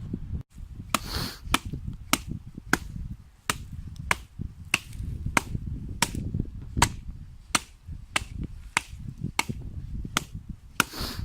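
Dry wood being chopped: a steady run of sharp blows, about two a second.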